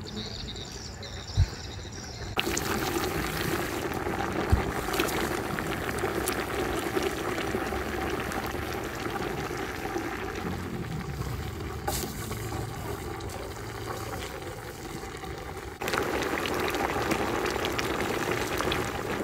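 A large pot of sugar palm seeds and pineapple boiling in syrup over a wood fire: steady bubbling with small crackles and pops, starting about two seconds in after a quieter stretch.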